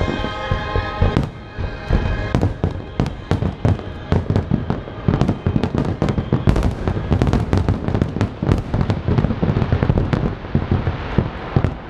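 Aerial firework shells bursting in a dense finale barrage, many sharp booms in quick succession that come faster after about two seconds. Show music plays over the first second or so.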